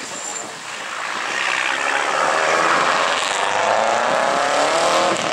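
Rally car engine at high revs approaching and passing, getting louder from about a second and a half in, its pitch falling as it goes by.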